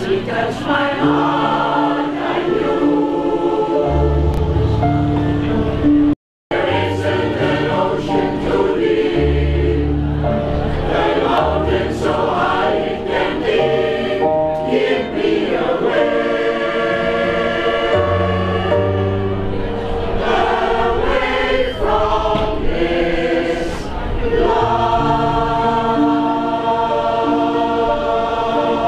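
A vocal group singing in harmony over an instrumental accompaniment with a bass line. The sound cuts out completely for a moment about six seconds in, then the song carries on.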